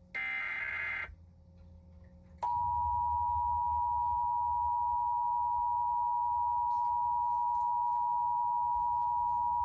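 The Emergency Alert System test begins with the last of its three SAME digital header transmissions, about one second of raspy, buzzing data tones. After a gap of roughly a second and a half, the EAS two-tone attention signal starts about two and a half seconds in. It is two steady high tones sounding together at a constant loud level.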